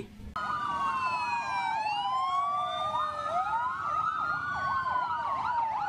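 Several fire engine sirens sounding at once: slow wails rising and falling, overlapped by a faster yelp at about three cycles a second. They start just after the beginning and cut off suddenly near the end.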